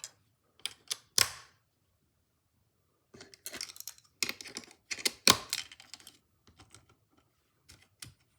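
Irregular sharp clicks and clatter of hard plastic, Snap Circuits parts being handled and snapped together: a few clicks, a pause, then a dense run of clicking that thins out near the end.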